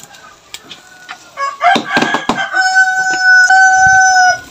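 A rooster crowing: a rough, rising opening about a second and a half in, then one long held note that cuts off just before the end.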